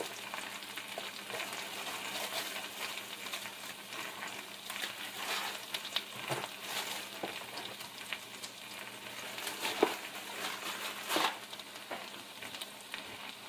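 Potatoes, onions and steak frying in a skillet: a steady sizzle, with a few sharp scrapes and taps of a utensil stirring them in the pan, the loudest just under ten seconds in and about eleven seconds in.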